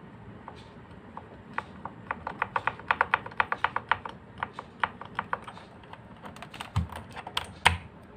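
Backspace key of an Armaggeddon MKA-9C mechanical keyboard with lubed Outemu blue clicky switches being pressed over and over: scattered clicks, then a quick run of presses, then slower ones. Near the end come two heavier knocks with a dull thud.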